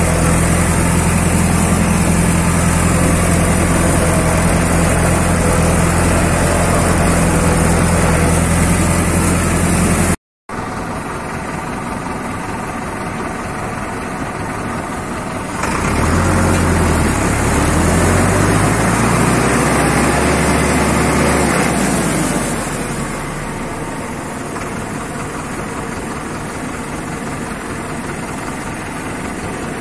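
An engine runs steadily with a strong low hum. About ten seconds in there is a brief cut, then an engine runs again; it gets louder and its pitch rises and falls for several seconds in the middle, then it settles back to a steady run.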